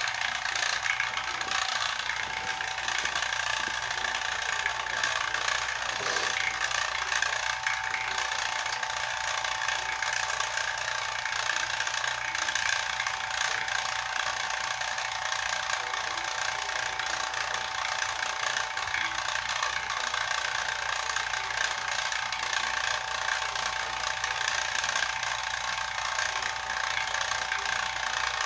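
Small electric rotary-vane vacuum pump running steadily, a continuous mechanical drone with a steady whine on top, pumping the air out of a glass bottle.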